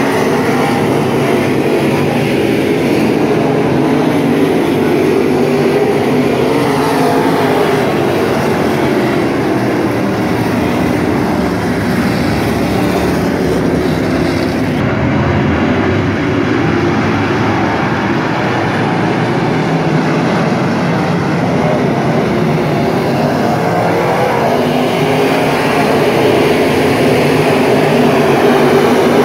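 Several dirt-track race cars' engines running as the field circles the oval, a steady loud drone heard from the grandstand.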